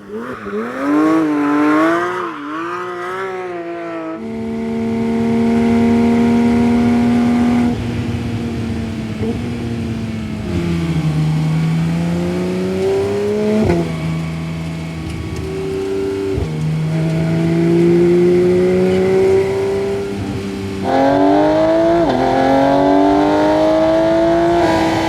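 Porsche 911 GT3 RS's 4.0-litre naturally aspirated flat-six engine revving and accelerating: its pitch wavers, holds steady, then climbs and drops sharply at quick upshifts of the PDK dual-clutch gearbox, each shift marked by a short crack. The sound changes abruptly twice, as if between separate runs.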